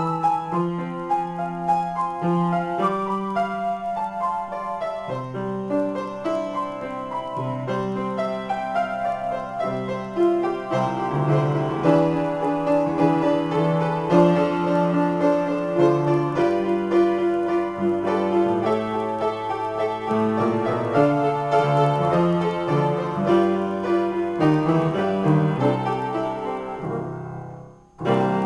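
Solo piano improvisation, chords and melody played without a break. The sound cuts out abruptly near the end and comes straight back.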